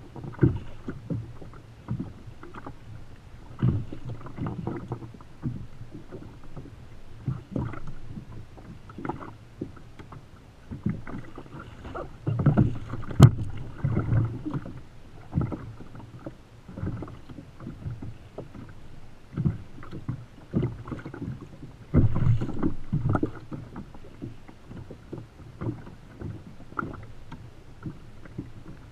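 Choppy sea slapping against the hull of a Feel Free Lure 13.5 sit-on-top fishing kayak: irregular low knocks and splashes, with louder clusters around the middle and about three-quarters of the way through.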